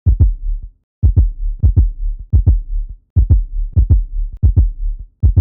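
Heartbeat sound effect: deep lub-dub double thumps, about one beat every two-thirds of a second, in short runs of three broken by brief silent gaps.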